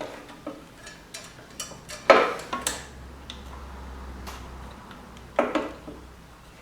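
Scattered light clicks and taps of small metal and plastic parts being handled as a linkage rod is fitted to a lawnmower carburetor, the loudest knock about two seconds in and a couple more near the end.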